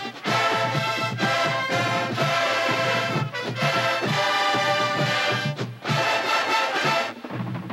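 Drum and bugle corps horn line playing loud, sustained brass chords, with short breaks about three, six and seven seconds in.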